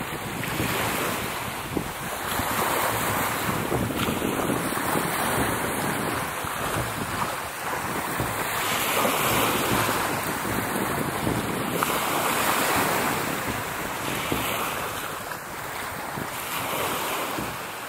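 Sea waves washing, swelling and easing every few seconds, with gusting wind buffeting the microphone.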